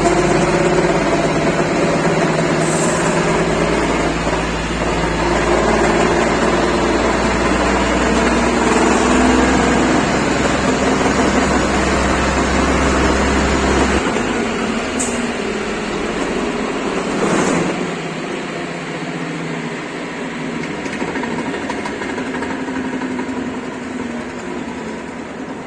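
Scania truck running, with a steady drivetrain whine and deep drone that the owner puts down to the differential. The deep drone drops away about halfway through and the sound slowly grows quieter.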